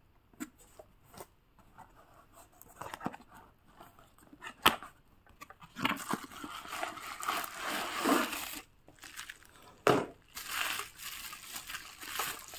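Toy packaging being handled and torn open: crinkling and tearing with scattered clicks, including a sharp click about five seconds in and another near ten seconds.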